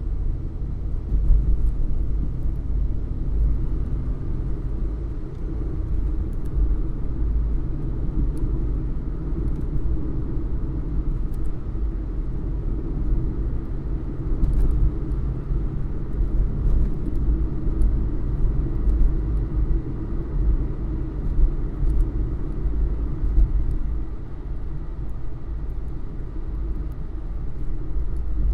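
Ford Fiesta running steadily: an even low rumble with no revving, a few faint ticks over it.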